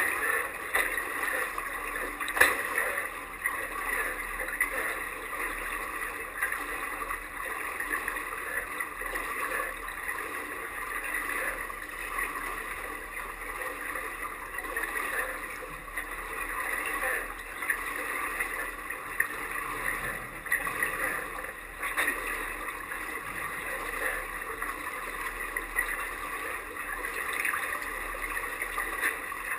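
Water sloshing and gurgling against a plastic whitewater kayak's hull, heard from the waterline half underwater, with a few sharper splashes as the kayak is rolled over and back up.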